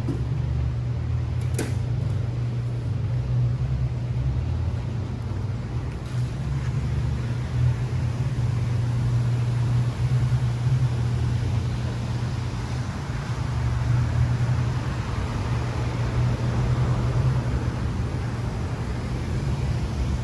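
Machinery running with a steady low hum and a broad rushing noise, with one sharp click about a second and a half in.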